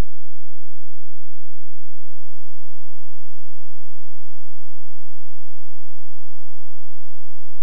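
VHS tape playback with no programme sound: a faint steady hum and tape hiss, with a short crackle about half a second in.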